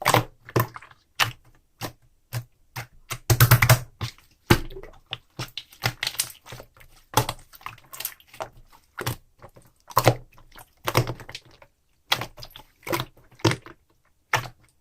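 A large ice slime being squeezed and pressed by hand, giving irregular crisp clicks and pops, with a denser burst of crackling about three and a half seconds in.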